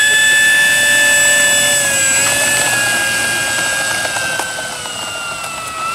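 Electric motor and propeller of an Airfield 57-inch T-28 Trojan radio-controlled model plane at high throttle: a loud, steady whine that slides slowly lower in pitch as the plane rolls away down the runway on its takeoff run.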